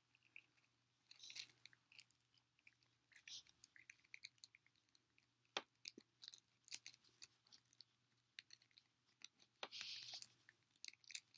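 Faint, irregular rustling and crackling of single-braided synthetic rope being bunched and coiled in the hands.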